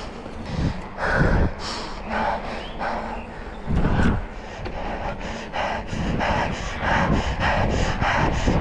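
A cyclist's heavy breathing close to the microphone, settling about halfway through into quick, regular panting of about two breaths a second, over a low wind rumble from riding.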